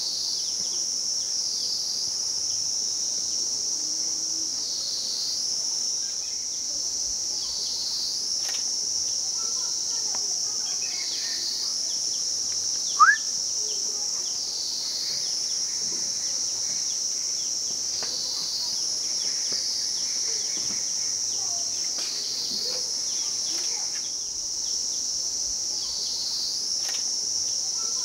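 Steady high-pitched insect chorus that dips briefly about every two and a half seconds. A single short rising chirp stands out about halfway through.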